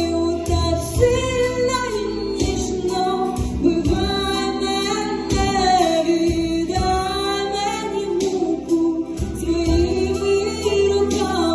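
A song: singing voices over instrumental accompaniment.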